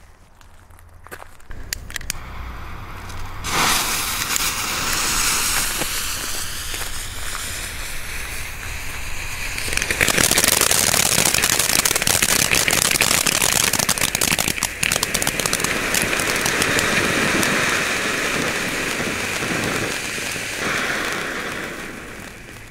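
Small category F1 ground fountains (Lemon Pink) hissing and crackling as they spray sparks, with a dense patter of fine crackles over the hiss. The sound builds a few seconds in, is loudest from about ten seconds in, and fades near the end.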